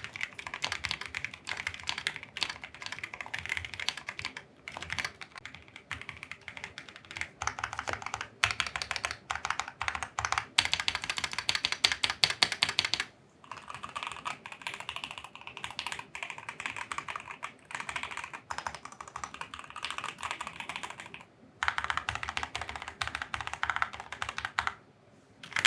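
Fast typing on a Keychron Q3 mechanical keyboard fitted with keycaps under test: a dense run of key clicks and clacks. It comes in several stretches, with brief pauses about halfway through and again near the end, where the click sound changes.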